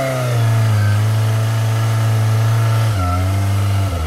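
Kawasaki Ninja ZX-25R's 250 cc inline-four engine running at a steady pitch under way, dropping in pitch about three seconds in and again near the end.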